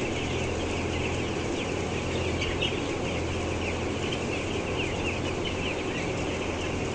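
A flock of broiler chickens peeping together in a dense, continuous chorus of short, high, falling calls, over a steady low hum.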